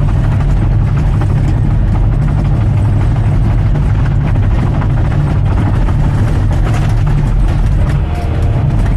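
Bulldozer's diesel engine running steadily at working speed, a strong low drone with a constant rattle over it.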